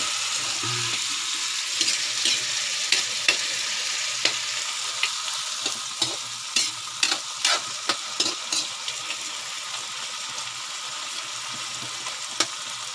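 Wild pig meat and tomatoes sizzling steadily in a metal wok, with repeated scrapes and clinks of a metal ladle stirring against the pan.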